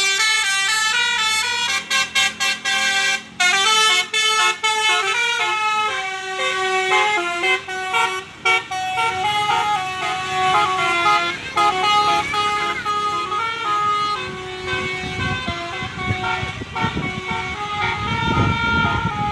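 Bus basuri musical horn playing a melody of stepped notes, cut into short on-off blasts for a few seconds early in the tune. Low vehicle rumble rises under it near the end.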